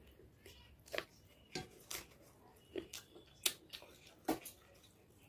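Eating rice by hand: a string of short, sharp, wet clicks and smacks, about seven over a few seconds, from fingers kneading rice on a plate and from chewing.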